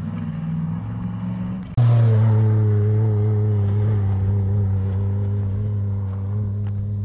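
Off-road race UTV engines running at speed. A steady engine note gives way about two seconds in to a much louder one that starts suddenly, then holds and drifts slowly down in pitch.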